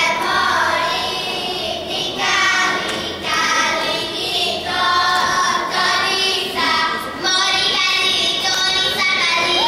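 A group of young girls singing a Greek folk song together in unison, in short phrases with brief breaths between them.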